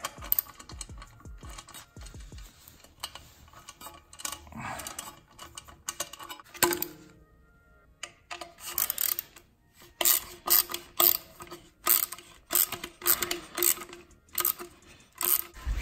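Small hand ratchet with a Torx bit clicking as it tightens the clamp bolt on a blow-off valve flange: scattered clicks and metal handling at first, then from about halfway a steady run of sharp clicks, roughly two a second.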